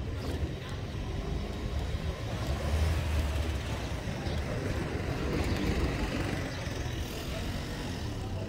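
A motor vehicle's engine running steadily nearby, its low hum swelling about three seconds in, over general street hubbub.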